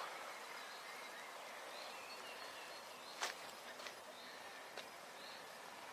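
Quiet outdoor garden ambience: a steady low hiss with faint, scattered bird chirps and a few soft clicks, the clearest about three seconds in.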